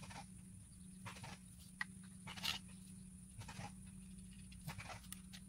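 Small plastic parts of a radio-control car clicking and scraping irregularly as they are handled and fitted together by hand, the loudest tick about two and a half seconds in, over a steady low hum.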